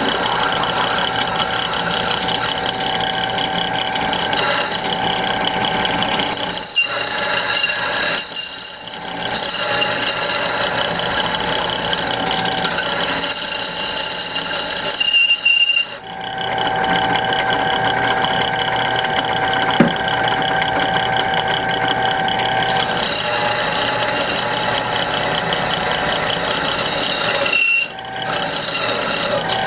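Electric drill press running a drill bit through steel plate, a steady motor whine with a few brief dips in load. Near the end the bit squeaks, a sign it has run short of cutting oil.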